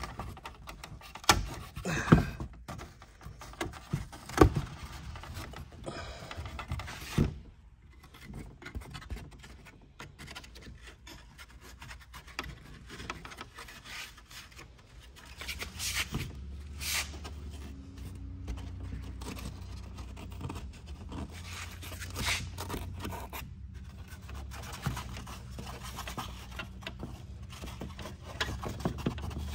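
Old, deteriorating trim covering being peeled and scraped by hand off a rusted metal quarter-window trim panel where it was heavily glued: irregular rubbing and scraping, with sharp clicks and snaps in the first several seconds. A low steady hum comes in about halfway through.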